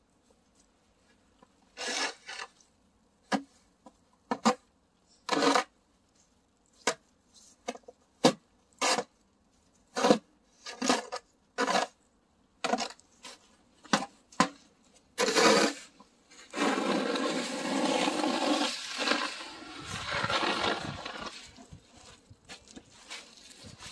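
Snow shovel scraping along an asphalt driveway: a string of short, separate scrapes, then a longer continuous scrape about two-thirds of the way through.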